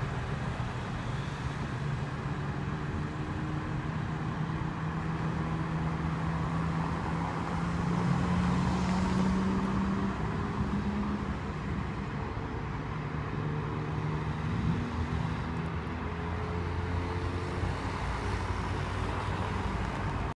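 A large engine running steadily, its pitch rising a little about halfway through and then settling back.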